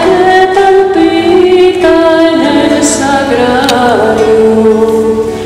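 A woman singing a hymn into a microphone with acoustic guitar, in long held notes that step from pitch to pitch.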